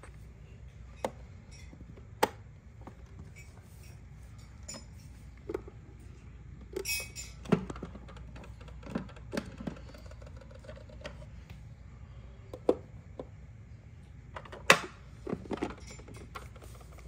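Scattered light clicks and taps of small plastic pieces of a Miniverse miniature kitchen playset being handled, with a brief rattle about seven seconds in.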